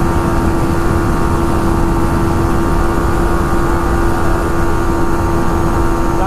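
Yamaha MT-15's 155 cc single-cylinder engine running at a steady, unchanging pitch at highway speed on a top-speed run, with heavy wind rush over the microphone.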